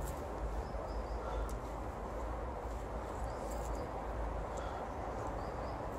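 A golden retriever rolling and wriggling on its back on rough paving tiles, with a few soft scuffs, over a steady low rumble, while small birds chirp faintly several times.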